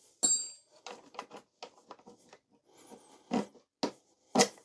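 Metal clinks and knocks as a motorcycle's stock exhaust end can is worked off its link pipe and handled. A ringing clink comes about a quarter second in, then scattered light clicks, then two louder knocks near the end.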